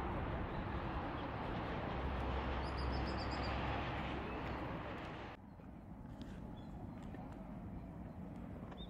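Wood fire burning in a CAGEDBIRD large wood stove: a steady rushing noise that drops off abruptly about five seconds in, leaving a quieter hiss with a few small crackles. A bird chirps briefly about three seconds in.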